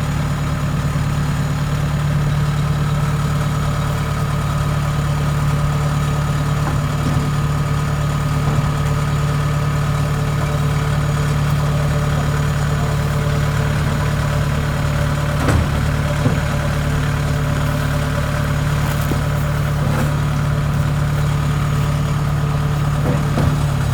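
Kubota DC70 combine harvester's diesel engine running steadily at a constant speed, with a steady low hum. Two light knocks come just past the middle.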